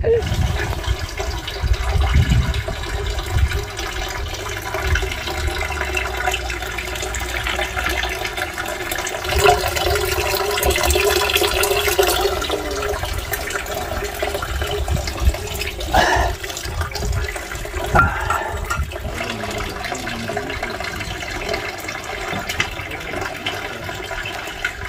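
Spring water running steadily into a stone basin, with two brief knocks about two-thirds of the way through.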